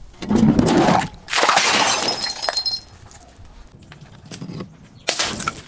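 Glass being broken and crushed in several loud bursts of crunching and shattering, with shards ringing and tinkling. A short crunch comes just after the start, a longer shattering burst with ringing glints follows, then scattered small clinks and one more burst near the end.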